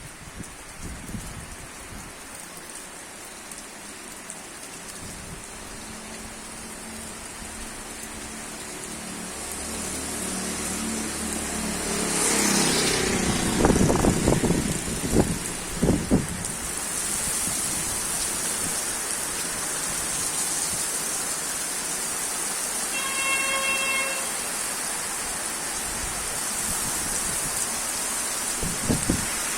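Heavy rain pouring down, its hiss growing steadily louder over the first dozen seconds and then holding. About halfway through, a vehicle passes with a rising engine note and a low rumble. About three-quarters through there is a short pitched beep.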